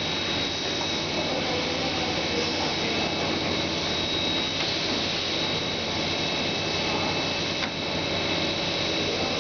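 Automatic die-cutting machine running: a steady mechanical whir with a thin, high, constant whine over it.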